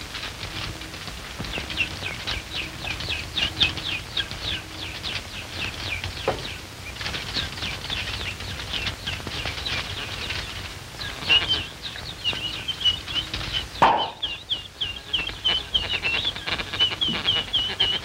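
Rapid strings of short, high, falling chirps, several a second: a cartoon bird-call sound effect for the metal-eating bird. A steady high whistle runs beneath the chirps in the later part. There are two sharp knocks, the louder one about three-quarters of the way through.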